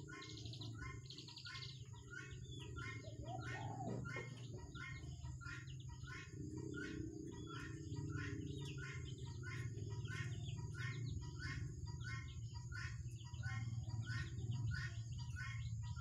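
Young birds peeping in a steady series of short high calls, about two a second, over a low background rumble.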